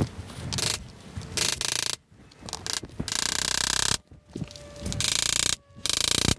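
Hammer driving a 3/16-inch cold chisel into the metal rim around a washing machine transmission brake bearing, staking little burrs of metal over the bearing to hold it in. The taps come in quick runs of under a second, with a longer run about three seconds in.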